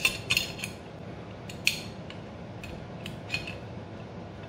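Light metallic clicks and clinks of a long metric Allen key and screw against the steel-and-aluminium motor bracket, as the first bracket screw is started by hand into the servo motor and left loose. A few sharp ticks come close together at the start, then single ones about a second and a half in and again past three seconds, over a faint low hum.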